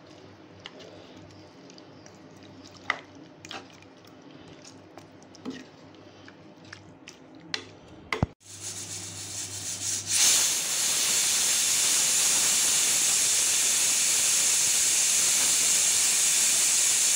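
Ladle stirring gravy in an aluminium pressure cooker, with faint scattered scrapes and clicks. About eight seconds in, steam begins to escape through the closed cooker's weight valve and builds to a loud, steady hiss: the pressure-cooker whistle that shows it has reached full pressure.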